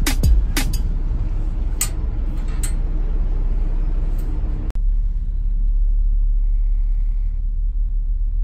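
Steady low rumble of a harbour ferry's engine, with wind and water noise on the open deck. After a sudden cut about five seconds in, the rumble goes on steady and more muffled inside the passenger cabin.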